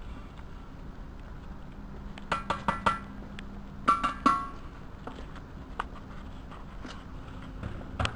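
Metal scoop knocked against a plastic jug, giving sharp ringing clinks in two quick runs: four strikes about two and a half seconds in, then three about four seconds in, with a few lighter ticks after and a faint steady hum underneath.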